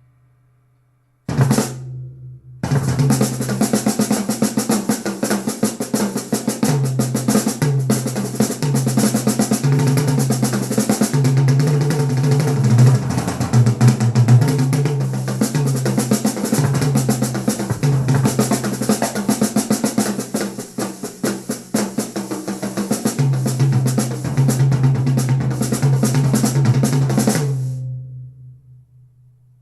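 Drum-heavy music played through a JBL Control 28 loudspeaker (8-inch polypropylene woofer, 1-inch titanium-coated horn tweeter). A single hit comes about a second in, then a fast drum pattern runs over a pulsing bass line and fades out near the end.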